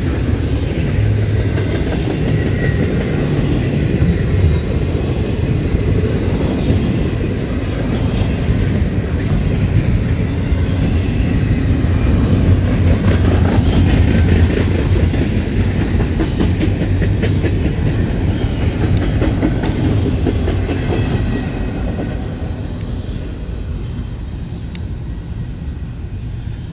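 Intermodal freight train's double-stack container well cars rolling past with a steady low rumble and frequent clicking of wheels over the rails. The sound fades over the last few seconds as the end of the train goes by.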